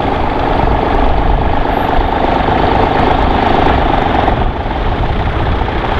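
Tractor engine running steadily, with a heavy, unsteady low rumble that fits wind on the microphone.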